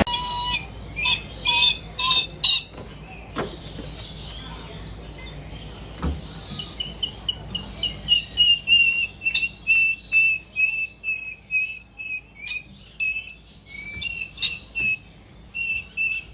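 Bird chirping: a few sharp high calls at first, then a long run of short, evenly repeated high chirps, about three a second.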